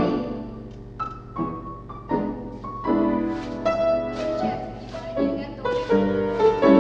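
Solo piano playing a classical accompaniment for a ballet barre exercise: chords and melody notes struck in a steady rhythm, each one fading before the next.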